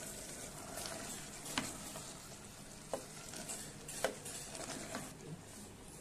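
Wooden spoon stirring cauliflower and potatoes into sizzling masala in a pressure cooker, with three sharp knocks of the spoon against the pot.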